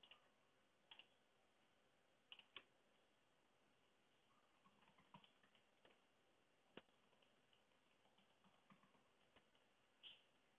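Near silence: room tone with a handful of faint, short clicks scattered through it, the clearest about a second in, two close together around two and a half seconds, one near the middle and one near the end.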